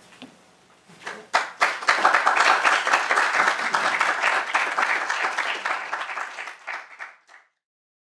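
Audience applauding, beginning about a second in, thinning out and stopping shortly before the end.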